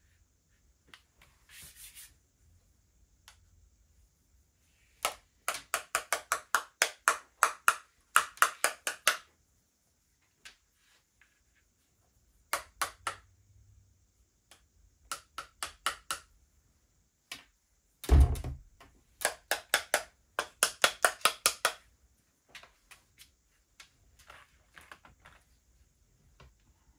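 Runs of quick, sharp ringing clicks that start and stop several times, with one heavy thump about 18 seconds in.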